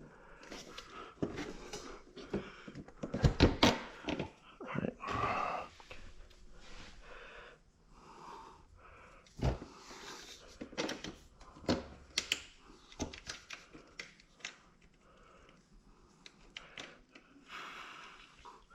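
Scattered metal clinks, knocks and scrapes from a Yoshimura Alpha T slip-on motorcycle exhaust and its hardware being handled and slid into place. The loudest knocks come about three to four seconds in.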